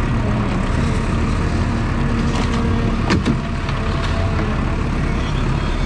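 Motor vehicle engine running steadily, a dense low rumble, with a brief sharp sound about three seconds in.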